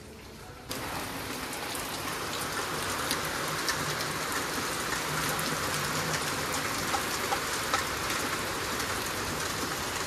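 Steady rain pouring down: an even, dense hiss with scattered drop ticks. It starts suddenly less than a second in and holds steady.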